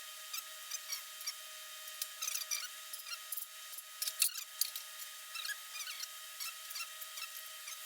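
Light, irregular scratching and clicking of hand work on the steel workbench frame while bolt-hole positions are marked out, over a faint steady hum. The loudest click comes about four seconds in.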